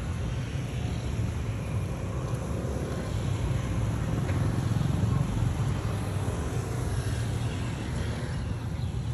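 Steady low rumble of street background noise.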